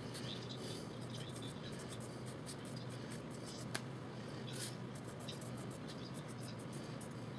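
Drawing tool scratching in short, quick strokes on sketchpad paper, over a steady low hum, with one sharper tick a little past halfway.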